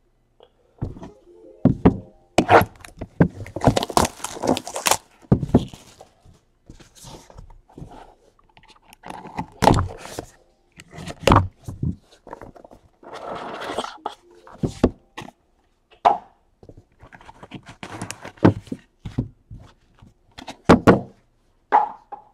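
Hands handling cardboard trading-card boxes and cards on a desk mat: irregular knocks, taps and scrapes as the boxes are picked up and set down, with a short stretch of rustling about 13 seconds in.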